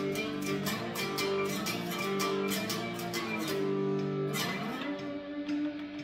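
Handmade electric cigar box guitar played in a blues riff, with picked notes ringing over a sustained low note. About four and a half seconds in, one note glides up in pitch.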